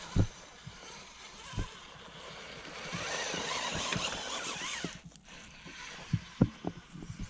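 Axial Capra RC rock crawler's electric motor and drivetrain whining, rising and falling in pitch as it is throttled up over rock, loudest from about three to five seconds in. Several sharp knocks sound early on and again near the end.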